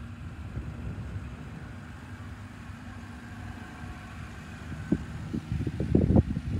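Toyota Land Cruiser 80-series engine running slowly and steadily as the truck crawls across beach sand, with a low hum. From about five seconds in, wind buffets the microphone in growing gusts, louder than the engine.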